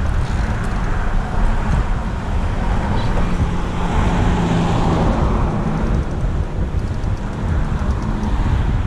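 Steady noise of road traffic driving past on the adjacent highway bridge, with one vehicle's engine hum standing out around four to five seconds in.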